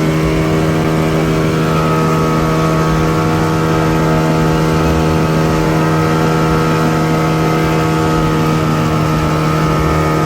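Motorboat's outboard engine running at a steady speed: an even, unchanging drone.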